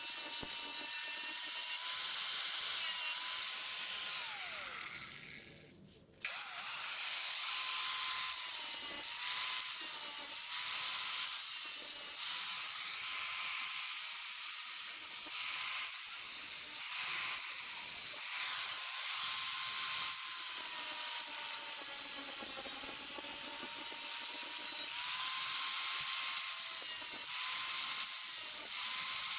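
Small electric power tool abrading rust from metal, its motor whine dipping and recovering as it is pressed on and eased off. The sound fades out briefly about five to six seconds in, then resumes.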